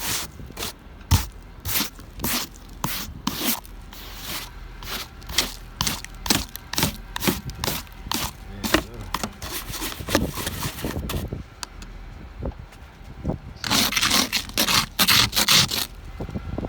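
Snow being scraped off a car by hand, in repeated short strokes roughly one or two a second, with a longer, louder run of scraping about three-quarters of the way through.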